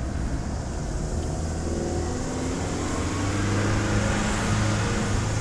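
A motor vehicle's engine running, with a steady low hum whose pitch climbs from about two seconds in as it speeds up.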